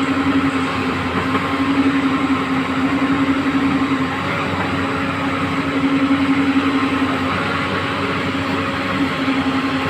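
A backhoe loader's diesel engine running steadily, with a strong, even hum that swells and eases slightly every few seconds.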